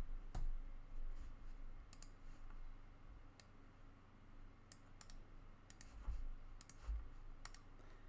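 About a dozen light, scattered clicks from a computer mouse and keyboard, spaced irregularly over a faint background hum.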